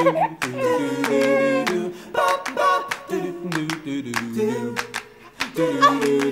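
Background music: a wordless sung 'do do do' melody over plucked guitar chords, with a light steady beat.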